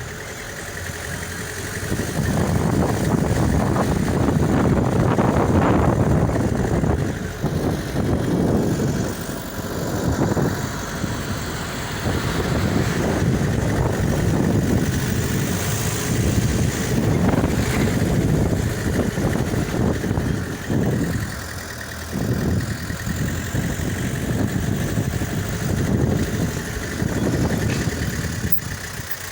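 Vehicle engine and road rumble, a low, uneven noise that swells and eases every few seconds.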